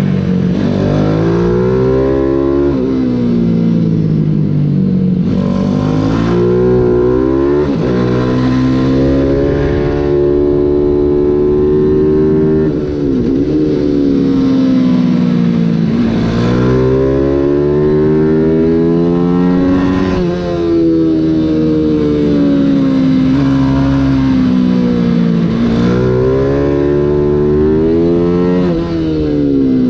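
A 140cc Mini GP race bike's engine heard from on board at racing speed. Its pitch climbs hard under acceleration, then drops sharply when the rider shuts off or changes gear, over and over through the lap.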